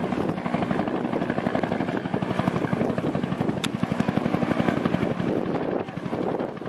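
Aircraft flying low overhead, its engine sound carrying a fast, even chopping beat, with a brief dip in loudness near the end.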